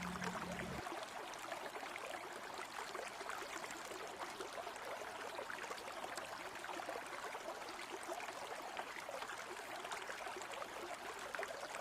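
Water running steadily in a shallow stream, an even low rush with fine crackle.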